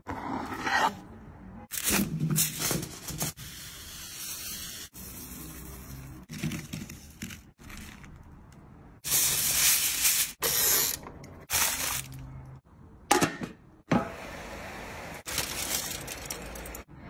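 Glazed food sizzling and hissing on a hot grill, heard in a string of short bursts that start and stop abruptly, the loudest a little past the middle.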